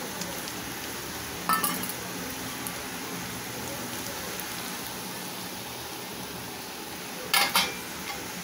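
Rice and vegetables frying with a steady gentle sizzle in a metal kadai, with a metal slotted spoon clinking against the pan once about a second and a half in and twice in quick succession near the end.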